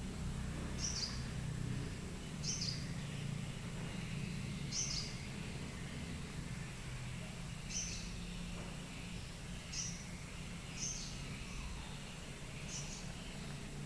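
Small bird giving short, high chirps, seven in all, spaced irregularly one to three seconds apart, over a steady low hum.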